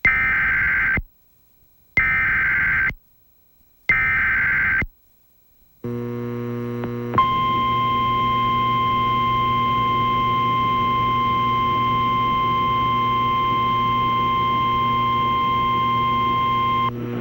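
Emergency Alert System alert opening: three one-second bursts of digital data tones (the coded header), each about a second apart. These are followed by a low steady hum and hiss. About seven seconds in, a single steady attention tone starts, holds for nearly ten seconds and then cuts off.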